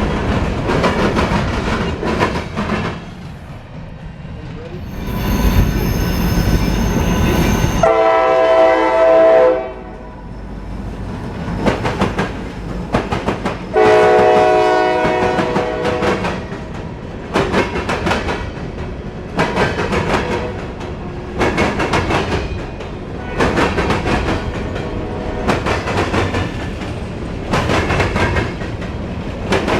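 A train passing: its horn blows twice, each blast under two seconds, about eight and fourteen seconds in. After that the wheels clack over the rail joints in a steady beat, about one knock a second.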